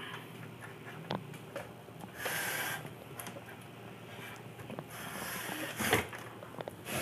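Faint scattered clicks and rustles of handling on a workbench, with two short hissy noises about two and five seconds in.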